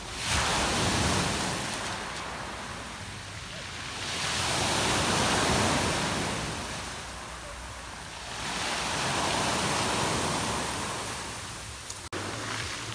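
Sea waves washing onto the shore, rising and falling in three swells a few seconds apart, with a short click near the end.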